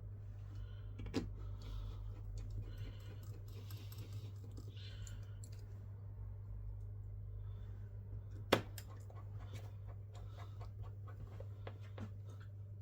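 Light clicks and taps of small tools and phone parts being handled on a workbench, with a sharp click about a second in and a louder one about eight and a half seconds in, over a steady low hum.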